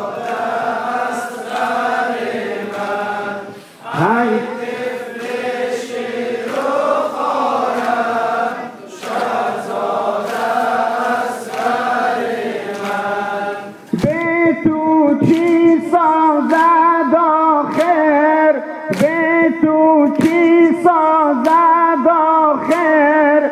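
Men chanting a Persian-language nauha (Muharram mourning lament) in chorus. About 14 seconds in, a louder verse begins and a steady beat of chest-beating slaps (matam) joins the singing, roughly one and a half slaps a second.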